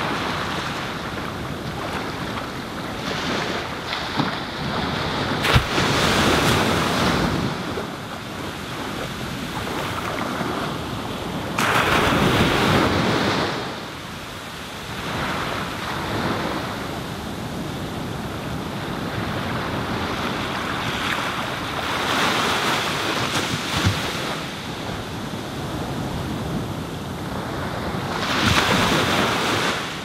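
Low ocean waves breaking and washing up a sandy beach, the surf swelling and falling back every few seconds.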